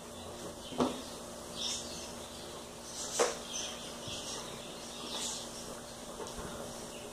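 Quiet handling noise from a small plastic squeeze bottle of glue and felt pieces being pressed down by hand: two short sharp sounds, about a second in and about three seconds in, and a few fainter ticks over a low steady hum.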